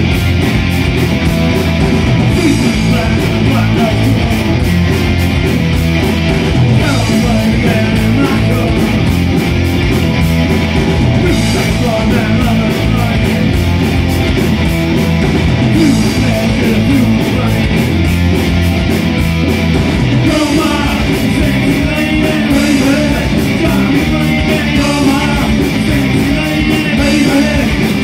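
Loud rock music with electric guitar and a steady drum beat, and a voice singing.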